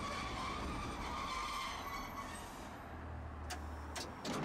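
Tosaden streetcar running on its rails, heard from inside the car: a steady low hum with a wavering whine and rushing noise. The rushing fades about two-thirds of the way through, and a few sharp clicks follow near the end.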